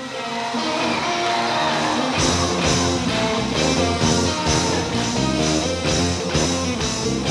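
Rock music with electric guitar fading in, with a steady drum beat joining about two seconds in.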